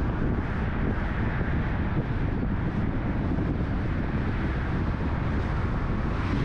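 Steady road noise from a moving car, a dense low rumble, with wind noise on the microphone.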